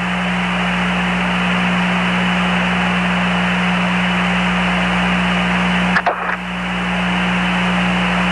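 Open-channel radio hiss on the Apollo 11 air-to-ground voice link between transmissions, steady, with a low hum underneath. A short click and brief dip in the hiss come about six seconds in.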